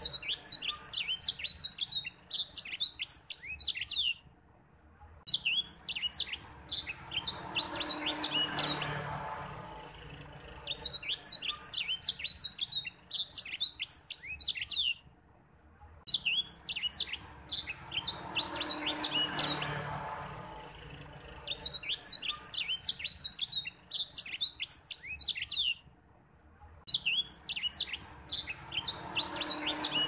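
White-rumped seedeater singing vigorously: long phrases of rapid, high twittering notes, each about four seconds long, with pauses of about a second between them.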